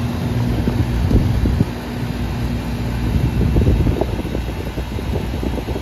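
Outdoor air-conditioner condensing unit running just after a hard start: the condenser fan and compressor make a steady low hum, with irregular low bumps and rumbles over it. The unit is running with a badly dirty condenser coil, which gives it high head pressure.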